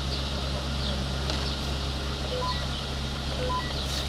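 Police radio with a steady low hum, sounding two short alert beeps that step up in three rising notes, the second set about a second after the first, in a pause between dispatch calls.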